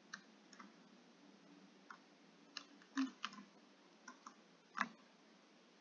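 Faint, irregular clicks of computer keyboard keys being pressed, the arrow keys being tapped, about nine presses, the loudest about three seconds in and near the end.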